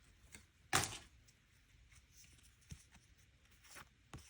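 Mini photocard pack and cards being handled as a pack is opened: one short rustle about a second in, then a few faint taps and clicks.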